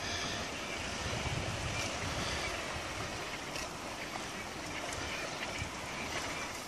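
Steady wind buffeting the microphone over waves washing on a beach.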